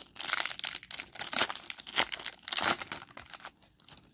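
Foil wrapper of a MetaZoo Nightfall booster pack crinkling and crackling as it is handled, in a dense run of crackles that dies away near the end.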